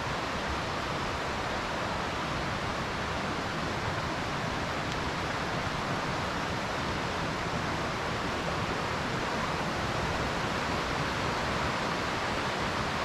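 Steady rushing of a mountain creek, an even, unbroken noise.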